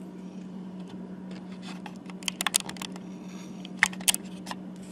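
Small sharp clicks and taps of tiny gearbox parts being handled and positioned: a quick cluster about halfway through, then two louder clicks near the end. A steady low hum runs underneath.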